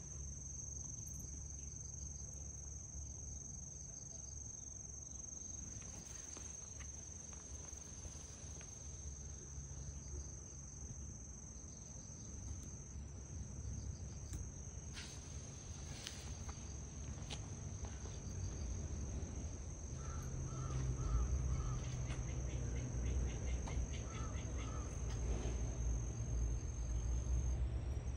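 Continuous high-pitched insect song, one steady unbroken trill, over a low rumble that grows louder in the second half. Short repeated chirps join in during the last third.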